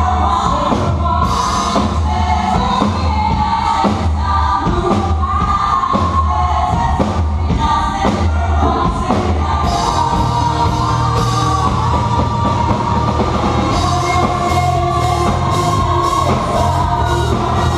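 Music with singing over a steady drum beat and bass.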